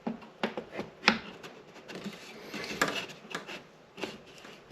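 A hand tool knocking and prying at a switch box toe-nailed in with small nails: a string of irregular light knocks and clicks.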